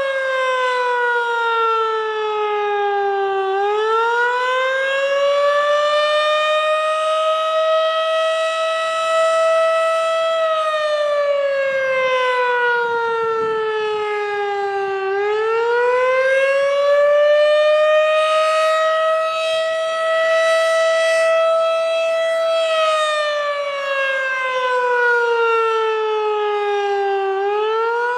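Outdoor tornado warning siren sounding a wail: a single tone that climbs, holds at its peak for a few seconds, then slides down slowly, repeating about every twelve seconds.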